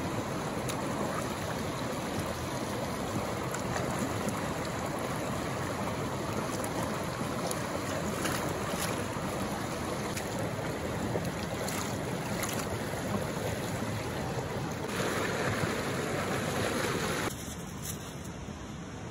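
Shallow mountain stream running over rocks close by: a steady rush of water with a few faint ticks. Near the end it drops suddenly to a quieter rush.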